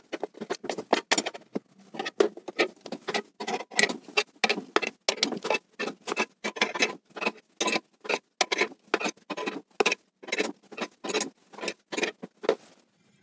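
Car scissor jack being cranked by its T-handle, the screw turning in a rapid, uneven run of short clicks, about three a second, that stops just before the end. The jack is lifting a heavy, fully loaded cabinet.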